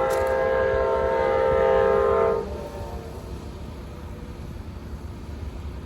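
Amtrak P40DC diesel locomotive's horn sounding one long, steady chord of several tones, cutting off about two and a half seconds in; a low rumble continues after it.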